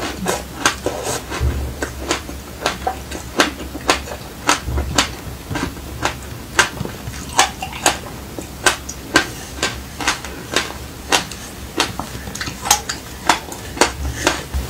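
Close-miked chewing of a mouthful coated in black sesame seeds: a run of sharp, irregular crunches, about two a second.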